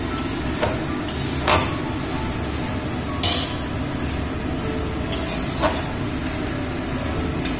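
Onion and garlic paste sizzling in hot oil in a metal kadai while a metal spatula stirs it. The spatula scrapes and knocks against the pan several times. The paste is being fried down and kept moving so it doesn't catch on the bottom.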